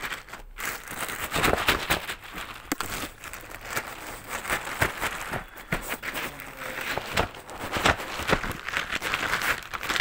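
A plastic courier mailer bag crinkling and rustling in irregular crackles as it is handled.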